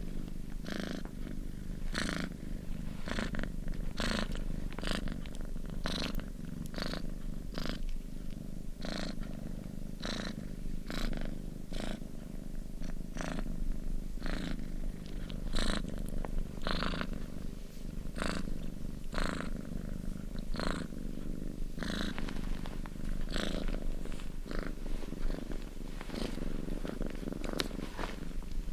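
Domestic cat purring steadily: a continuous low rumble with a breathy rasp that recurs about once or twice a second.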